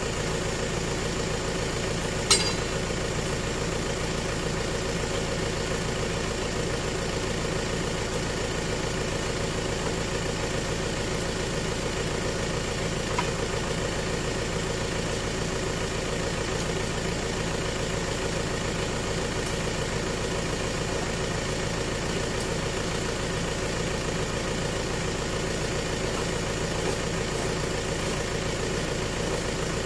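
Light truck engine idling steadily. A single sharp knock comes about two seconds in, and a fainter one near the middle.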